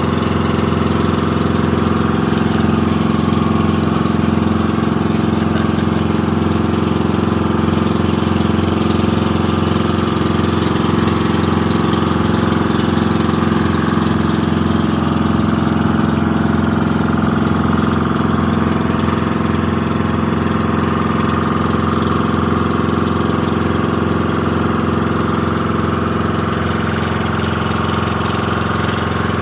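Engine of a motorized outrigger boat (bangka) running steadily under way, an even drone that holds the same pitch throughout.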